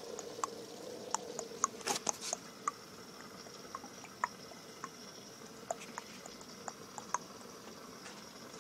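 Aquarium water dripping and bubbling: irregular small drips and bubble pops over a faint steady hum, with a brief louder splash about two seconds in.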